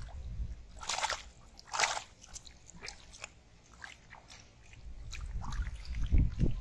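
Splashing in shallow muddy water as hands grab thrashing fish: two sharp splashes about a second apart near the start, then small scattered splashes and drips. Low thumps near the end as a fish is lifted out of the water.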